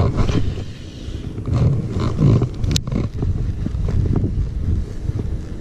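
Uneven low rumble of wind and rubbing on a body-worn camera's microphone as a sleeve brushes across it, with a few knocks and one sharp click about three seconds in.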